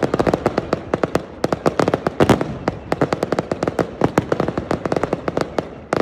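Aerial fireworks display: a dense, rapid run of sharp bangs and pops, many each second, with a few louder booms among them.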